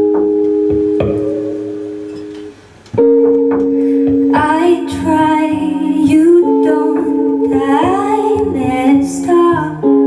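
Live trio music: a held chord on hollow-body electric guitar fades away, breaks off briefly, and a new chord starts about three seconds in. From about four seconds in, a woman sings over guitar and double bass.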